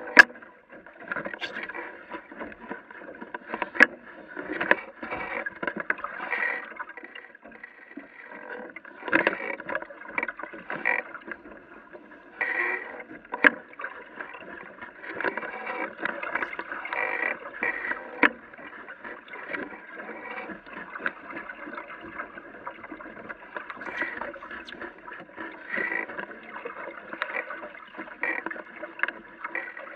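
Water sloshing and gurgling against the hull of a small AquaMuse sailboat under sail, in uneven surges, with a few sharp knocks and clicks from the boat.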